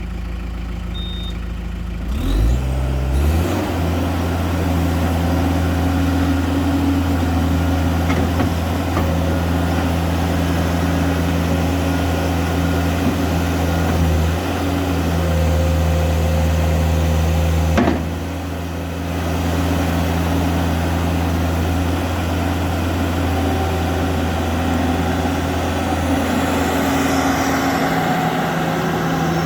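New Holland LS170 skid steer's diesel engine running: about two seconds in it revs up from a low idle to a higher steady speed and holds there, dipping briefly a little past halfway before coming back up.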